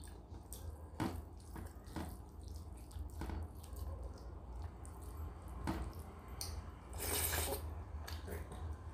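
Wet rice and dal squelching as a bare hand mixes and gathers them on a steel plate, with a few sharp clicks of fingers against the plate and a longer wet squish about seven seconds in.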